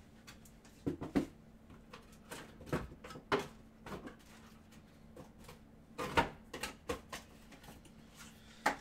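Trading cards and their packaging being handled on a table: scattered light taps and clicks, about eight in all, the loudest about six seconds in.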